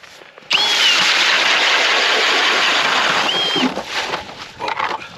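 Cordless drill driving an ice auger in a hole in the ice: the motor whines up about half a second in, runs for about three seconds with the auger churning ice and slush, then winds down with a falling whine.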